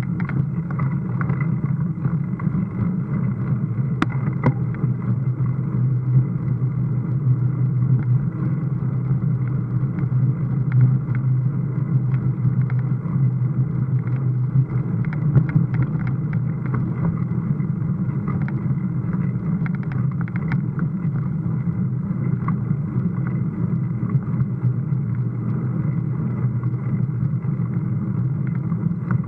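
Steady muffled rumble of wind and riding noise on a mountain bike's first-person camera during a climb, with a faint steady high whine and scattered light clicks and rattles.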